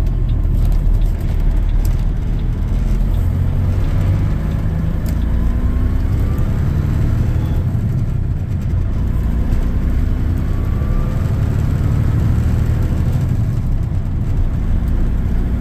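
Heavy diesel semi-truck engine heard from inside the cab while driving through the gears of a 13-speed transmission. The engine pitch rises twice as it pulls up through a gear.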